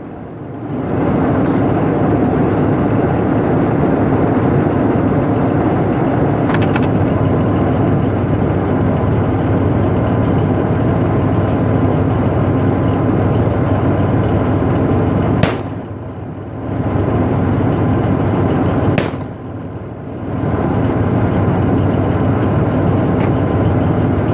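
Armoured vehicle's diesel engine running steadily, heard from on top of the hull. Twice, about 15 and 19 seconds in, a sharp sound cuts in and the engine sound briefly drops.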